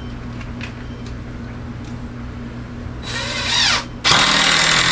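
Cordless drill driving screws into wooden door framing: a short run about three seconds in whose pitch drops as it slows, then a loud steady run about a second later.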